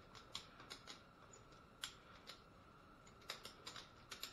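Ratchet strap buckle clicking as it is worked by hand to loosen the strap: irregular light clicks, some in quick runs, over a faint steady hum.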